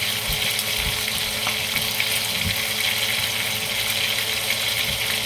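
Food frying in hot oil: a steady, even sizzle.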